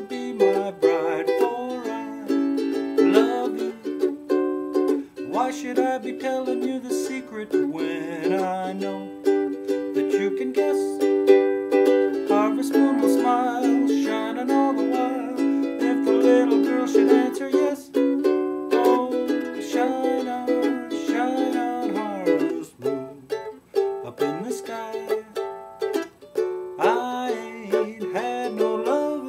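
Mahogany laminate Kala KA-S soprano ukulele strummed in chords, an instrumental passage with chord changes every second or two.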